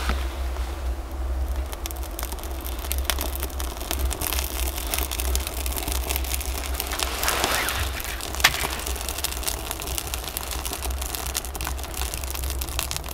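Kindling catching and burning in the firebox of a small metal wood stove: many small crackles and pops, with one sharp snap about eight and a half seconds in, over a low steady rumble.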